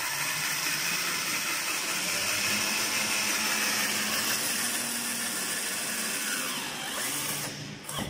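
Cordless drill running steadily under load against the metal top track of a sliding chalkboard. Near the end the motor winds down with a falling whine and stops.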